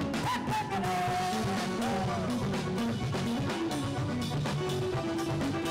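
Brazilian forró band playing an instrumental passage between sung verses. A melody line slides in pitch over bass and drums in the first couple of seconds.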